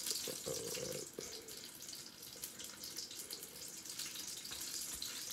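A steady hiss, heard in every window of this clip, with soft rustling and handling noises in the first second or so as hands work in a plastic-wrapped tray of dumpling filling.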